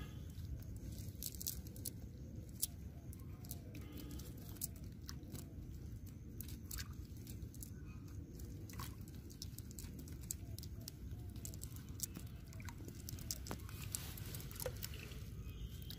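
Irregular small clicks and crackles as a cast net is handled on dry mud with live fish flapping inside it, over a steady low rumble.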